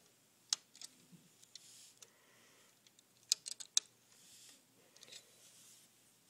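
Small sharp clicks of hard LEGO plastic as a minifigure is fitted into the model's seat: one click about half a second in, then a quick run of four clicks near the middle.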